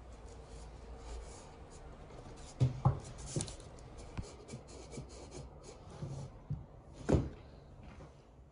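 Cardboard and a wooden skewer being handled: the skewer scraping through holes in cardboard tubes and cardboard rubbing. There are a few light knocks about three seconds in and another near the end.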